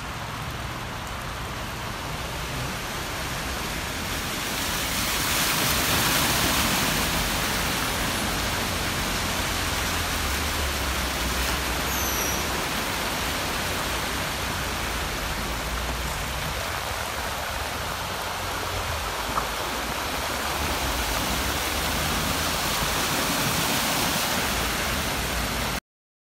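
Cars driving slowly through a flooded street, their tyres pushing through and splashing the floodwater, a steady rushing sound over a low engine hum. The sound swells twice as cars pass close.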